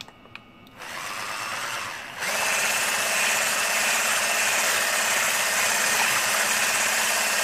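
Electric hand mixer whipping thickened cream: a few clicks, then the motor starts about a second in and steps up to a louder, steady running sound about two seconds in.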